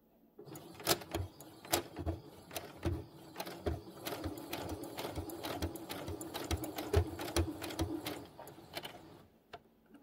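Electric sewing machine stitching: a steady motor hum with clicks from the needle. It starts about half a second in and stops about a second before the end.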